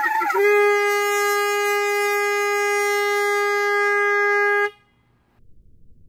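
Handheld canned-air horn blasting with its bell at the water's surface: a wavering, warbling note for about the first second while water splashes out of the bell, then a steady loud blare for about four seconds that cuts off abruptly. Faint water sloshing follows near the end.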